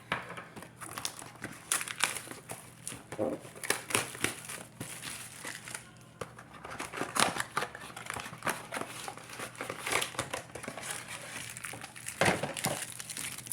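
Plastic trading-card packaging crinkling and tearing in irregular bursts as a Yu-Gi-Oh! card box and its packs are opened by hand.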